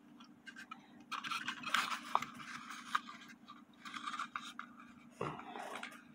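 Handling noises from fitting a clock movement into a small wooden cuckoo-style clock case: irregular scraping and rubbing with a few small clicks, over a faint steady hum.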